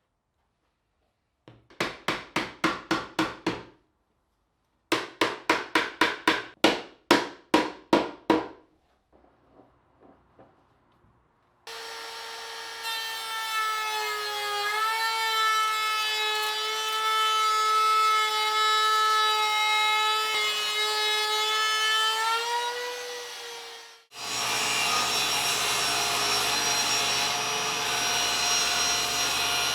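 Hand saw cutting wood in two runs of quick strokes, about four a second. Then a power tool motor runs at a steady pitch for about twelve seconds. After a cut, a louder, hissier machine runs to the end.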